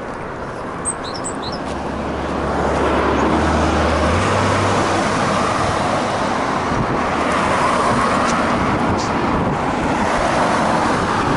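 Road traffic: cars passing close by on an asphalt street, tyre and engine noise swelling about two seconds in and staying loud, with a low engine hum for a few seconds.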